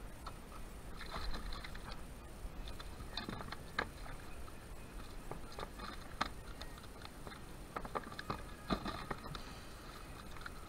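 Irregular small clicks, taps and scrapes of fishing gear being handled on the plastic deck of a sit-on-top kayak.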